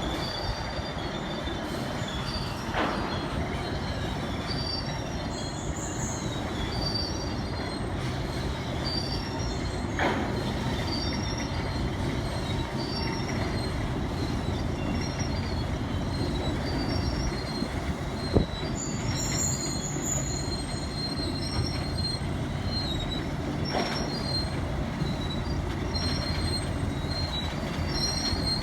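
CSX rail train unloading new rails: a steady rolling rumble with short, high metal-on-metal screeches coming again and again. A few knocks cut through, the loudest a sharp clank about 18 seconds in.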